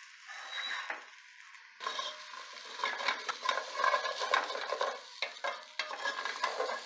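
A wooden spoon scraping and stirring sautéed vegetables in a hot stainless steel stock pot as they are scooped out, with the pot sizzling. It is softer for about the first two seconds, then turns into busy, repeated scraping and knocks against the pot.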